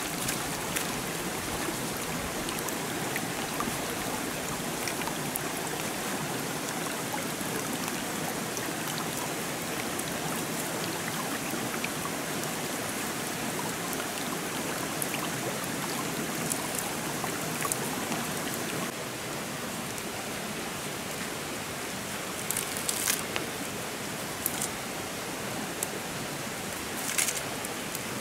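Shallow stream running steadily, a little quieter from about two-thirds through, with a few sharp clicks near the end.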